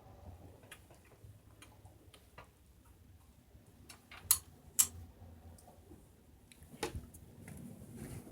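Scattered light clicks and taps, with two sharper clicks a little past halfway and another near the end, over a faint low hum.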